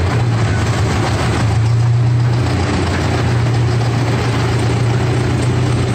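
A small amusement-park train's engine running steadily under way, a constant low drone.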